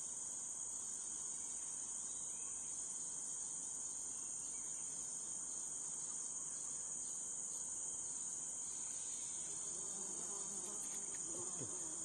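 Steady, high-pitched chorus of forest insects, droning on without a break.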